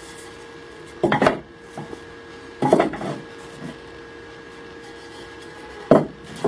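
Wooden boards being handled on a workbench: three knocks and clatters as pieces are turned and set down, the first about a second in and the last near the end, over a faint steady hum.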